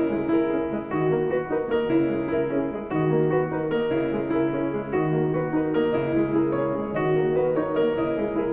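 Background piano music: a slow, regular pattern of chords and notes.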